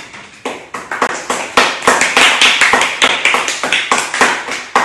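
A small audience applauding: scattered claps at first that thicken into steady clapping about a second in, with the separate claps still distinct.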